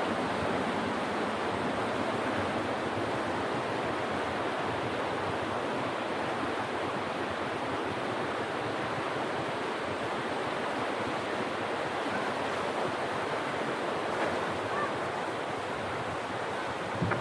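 Steady rushing of flowing water, like a swollen river or stream, an even noise that holds at the same level throughout.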